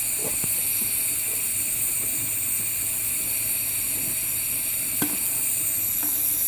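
Steady high hiss of a flamethrower jet burning continuously, with a light knock about five seconds in.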